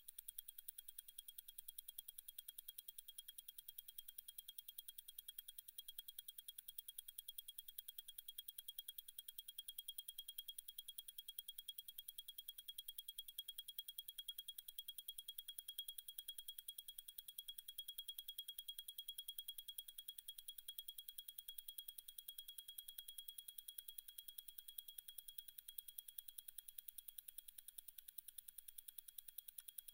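Zenith El Primero 3600 automatic chronograph movement ticking: a faint, fast, even beat of about ten ticks a second, its 36,000 vibrations per hour.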